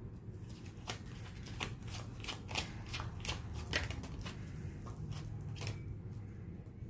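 Tarot cards being shuffled and handled, a quick run of sharp snaps and slaps that starts about a second in and stops near the end.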